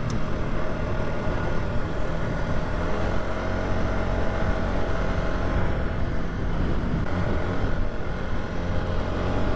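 ATV engine running steadily under way, with a continuous low hum and a faint tone that wavers slightly as the engine speed shifts.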